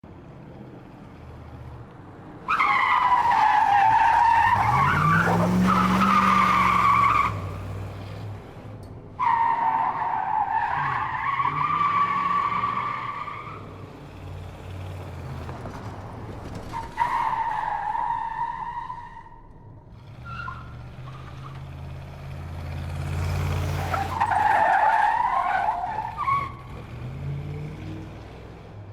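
Muscle car skidding: four bouts of tyre squeal, each a few seconds long and wavering in pitch, over the low note of the engine, which climbs as it revs about five seconds in and again past twenty seconds.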